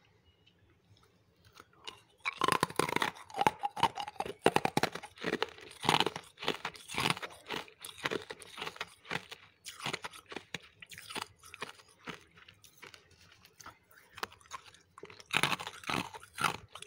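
Refrozen freezer frost being bitten and chewed: a dense run of crisp crunches starting about two seconds in, thinning out in the middle, with another loud cluster of crunches near the end.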